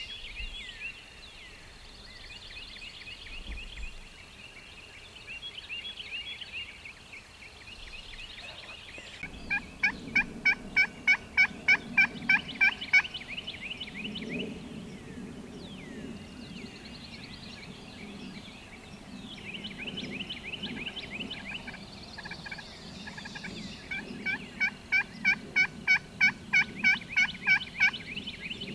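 Two runs of turkey yelping, each a dozen or so evenly spaced calls at about three or four a second. The first run comes about ten seconds in and the second near the end. Songbirds chirp throughout.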